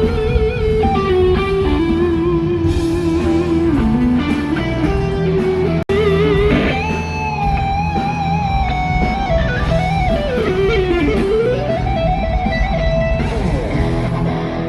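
Electric guitar solo: sustained lead notes with vibrato and wide bends, including a deep dip and return in pitch, over bass and drum backing. The sound cuts out for an instant about six seconds in.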